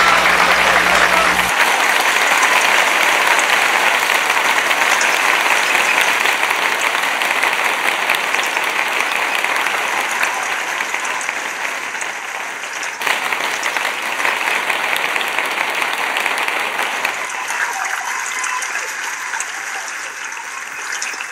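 Audience applauding, a dense steady clapping that slowly dies down.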